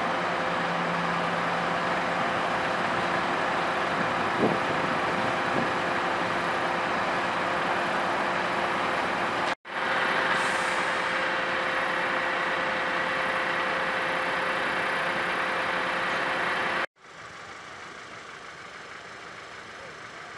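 Fire truck diesel engine running steadily: a loud, constant drone with a steady hum. The sound breaks off twice at sudden cuts, and after the second cut it is quieter.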